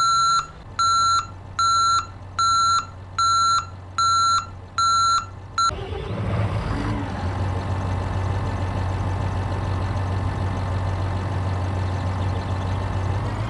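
Reversing alarm beeping, a single high tone a little more than once a second, about eight beeps, stopping about five and a half seconds in. Then a vehicle engine sound starts and runs steadily.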